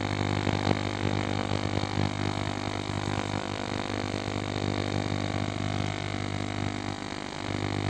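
VLOXO CD-2800 ultrasonic cleaner running a cleaning cycle, giving a steady electrical buzz with a low hum.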